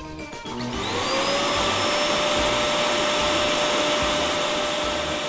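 Vacuum cleaner switching on about a second in, its motor spinning up to a steady whine over a loud hiss of rushing air.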